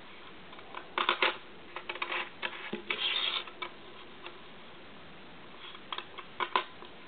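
Buckyballs, small neodymium magnet balls, clicking against one another as a small triangle of them is handled and snapped onto a larger assembly. The clicks come irregularly: a quick cluster about a second in, a denser run around the middle, and a few sharper ones near the end.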